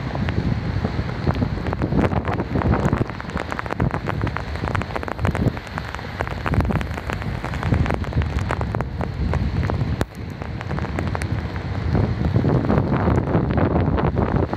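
Wind gusting on the microphone over steady rain, with many small ticks of raindrops; a short dip with a sharp click about ten seconds in.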